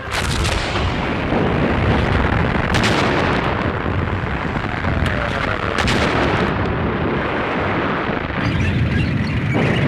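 Dense battle noise: artillery explosions and gunfire in a continuous rumble, with a few sharp cracks standing out.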